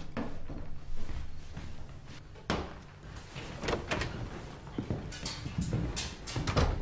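Several knocks and thuds of a person moving about a room and sitting down at a table, with a door shutting among them, over a low steady rumble.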